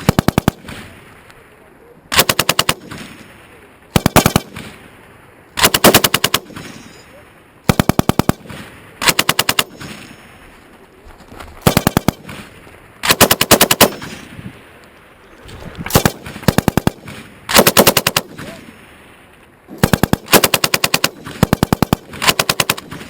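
M240B medium machine gun firing 7.62x51 mm rounds in many short bursts of a few rounds each, a new burst every second or two, at about ten shots a second within each burst.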